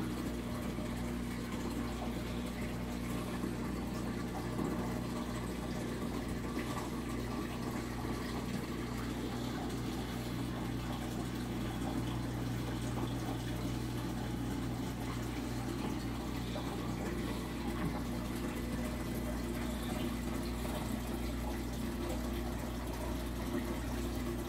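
Reef aquarium's pumps and water flow running steadily: a constant low hum with the sound of moving water over it.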